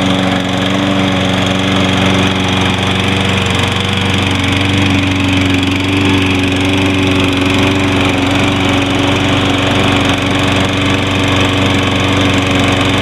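Toro Recycler model 20332 walk-behind lawn mower's 190cc engine running steadily at an even speed, freshly started cold after a hard start and now running smoothly.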